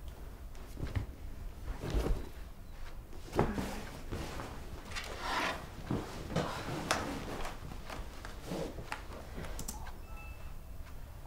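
Handling sounds on a sofa: rustling cushions and clothing and irregular soft thunks as a phone is put down and a laptop is lifted onto the lap, the sharpest knock about three and a half seconds in.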